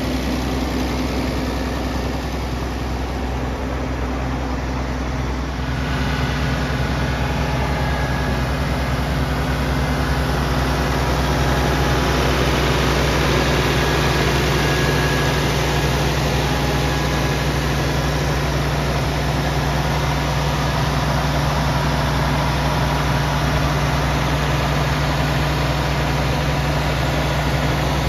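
Vintage Oliver tractor engine idling steadily, a low even running note that grows a little louder about six seconds in.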